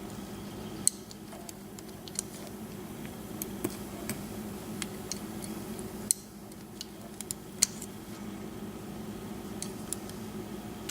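Scattered small metallic clicks and light clinks from the top pins and springs of a pin tumbler safe deposit lock being worked out of the cylinder and set down on a hard surface.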